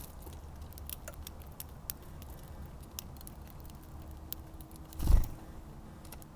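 Scattered sharp clicks and taps of small birds pecking and cracking seed at a bird feeder, over a low rumble, with one louder dull thump about five seconds in.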